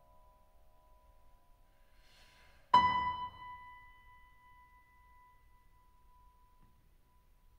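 Grand piano in a sparse, quiet passage: a high note held ringing, then, nearly three seconds in, one loud high note struck sharply that rings away over about a second while the held note lingers.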